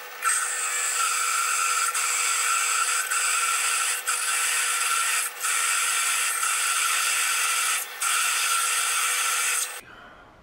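F-size twist drill cutting a tap-drill hole for a 5/16 coarse thread, with the work turning in a South Bend Heavy 10 lathe: a steady scraping cut over the lathe's running hum, dipping briefly four times. Both stop suddenly near the end as the lathe is switched off.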